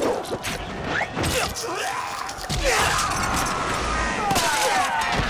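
Battle din: men shouting and yelling, with repeated sharp clashes and thuds of fighting.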